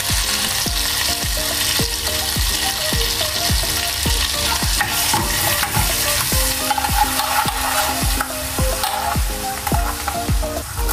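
Butter bubbling and sizzling as it melts in a small saucepan over a gas flame, stirred with a plastic spatula. A steady low thumping beat runs underneath.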